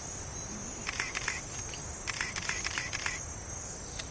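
Steady high-pitched insect drone of a rainforest, with two short bursts of rapid clicks or chirps about a second in and again from about two to three seconds in.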